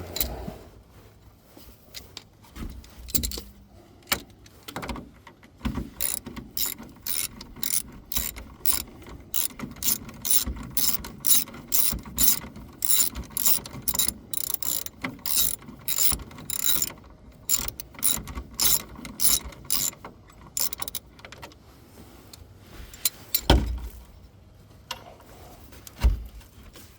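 Ratchet wrench undoing a shock absorber mounting bolt on a Chevy 3/4-ton van, a long run of rapid, evenly spaced clicks as the old shock is taken off. A couple of heavy knocks near the end.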